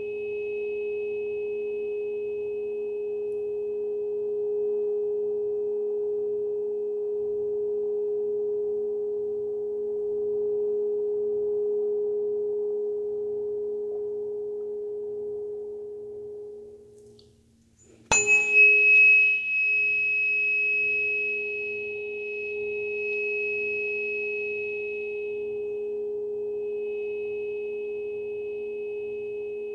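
A Solfeggio-set tuning fork ringing a steady pure tone with a faint high overtone, dying away a little over halfway through. It is struck again with a sharp metallic strike and rings out loud, its bright high overtone fading over the next several seconds while the main tone holds steady.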